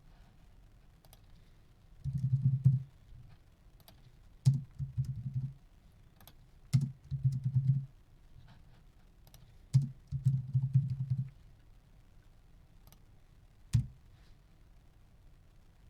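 Short clusters of clicks and low knocking, four bursts of about a second each, then a single knock near the end.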